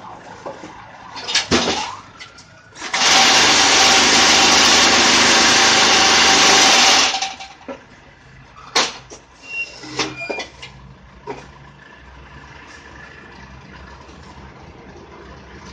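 Batako concrete block machine at work: metal clanks from its levers and mould, then its electric vibrator runs for about four seconds, a loud even rattling buzz with a steady hum, compacting the concrete mix in the mould, then cuts off abruptly. A few more metal knocks follow.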